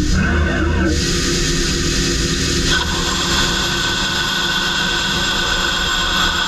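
CNC vertical turning lathe running a boring cut with a KM50 boring bar and KCU10 insert, under a spray of coolant: a steady machine drone. About three seconds in, a steady hiss with a faint high whine rises as coolant and the cut come on more strongly.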